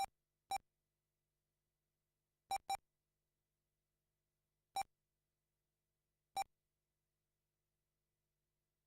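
Short electronic beeps from the RC race lap-timing system, five in all and spaced irregularly, two of them in quick succession about two and a half seconds in, each marking a car crossing the timing line. Between the beeps there is near silence.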